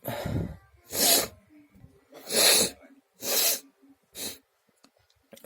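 A person sneezing explosively over and over: five sharp sneezes about a second apart, the fifth weaker, and another starting right at the end.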